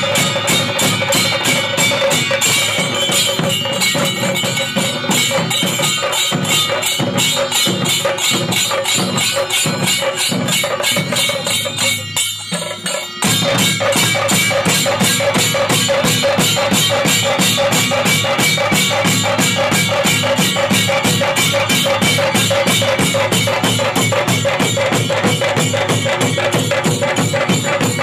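Chenda melam: a group of Kerala chenda drums beaten with sticks in a fast, dense, continuous rhythm. The drumming dips briefly about twelve seconds in, then resumes.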